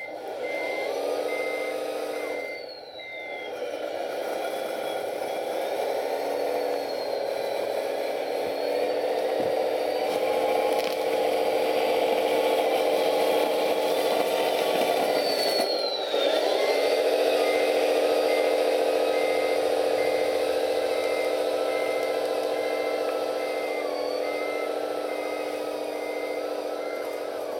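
Wedico CAT 966G radio-controlled model wheel loader, its sound-module speaker playing a simulated diesel engine under a high whine. The engine note dips and picks up again twice, and a reversing beeper sounds at the start and again from about two-thirds of the way through to the end.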